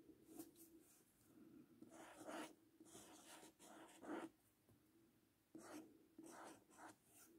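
Faint pen strokes on paper: a series of short strokes with brief pauses between them, as a character and then its pinyin are written out.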